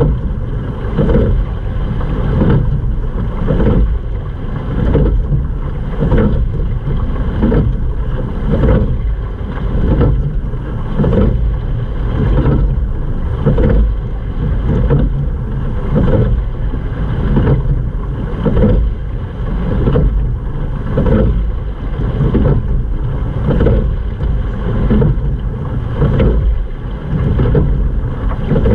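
Water rushing and slapping along the hull of a sculled rowing boat, swelling with each oar stroke about every two and a half seconds, under heavy wind rumble on the microphone.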